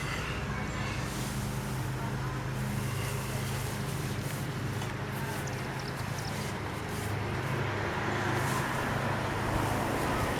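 A motor vehicle's engine running steadily, a low hum over road traffic noise, growing slightly louder near the end.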